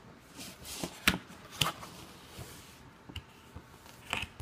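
Cardboard retail box being handled and turned over on a desk: rustling and sliding, with a few sharp taps and knocks, the loudest two a little over a second in, about half a second apart.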